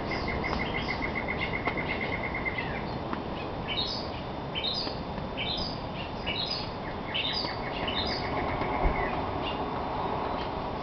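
Rainforest birds calling at dawn: one bird gives a fast, even trill on a single pitch, twice, and between the trills another gives a run of short calls that step downward, over a steady background hiss.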